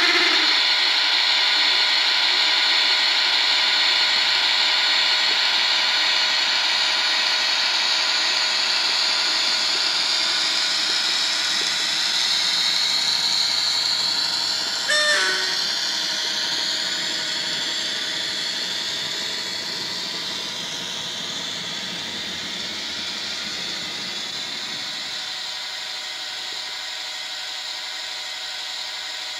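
Sound-fitted Bachmann OO-scale Class 57 model diesel locomotive: the DCC decoder's recorded Class 57 diesel engine sound plays through the model's small speaker as it runs. A short pitched tone breaks in about halfway through, and the sound fades over the second half as the model moves away.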